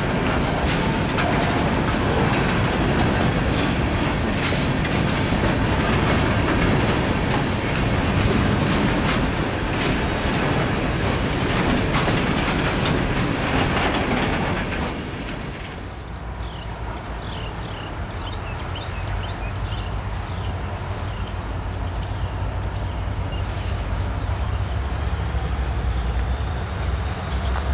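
Freight train of gondola cars passing close: steel wheels rumbling on the rails with a rapid clickety-clack over the rail joints. About halfway through it gives way to a quieter low rumble that grows louder toward the end as a diesel locomotive approaches from a distance, with a few short high chirps.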